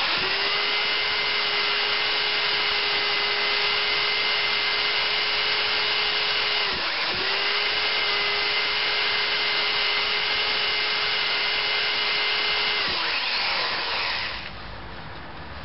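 Corded electric drill spinning a side-cutting router bit into soft cedar wood, starting with a click and running at a steady whine. The motor dips and picks straight back up about halfway through, then winds down with a falling pitch a couple of seconds before the end.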